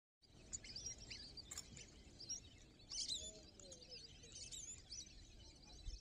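A flock of wetland birds chirping and calling, with many short high chirps overlapping and a lower call about three seconds in, over a low rumble.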